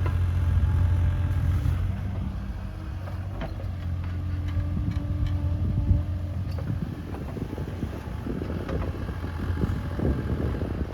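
Bobcat E37 compact excavator's diesel engine running steadily, with scattered knocks and scraping as the bucket works into very hard, compacted soil. The crunching grows rougher in the second half.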